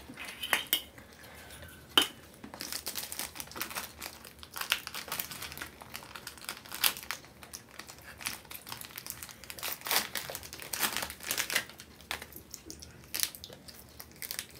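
Plastic wrapper of a chocolate-coated ice-cream bar crinkling as it is torn open and peeled off, in a long run of quick crackles. A single sharp click comes about two seconds in.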